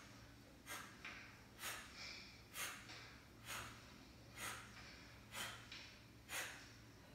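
A woman's short, sharp exhales, about one a second, in time with a standing side-to-side twist with swinging arms, the exhale on each swing of a kundalini breathing exercise.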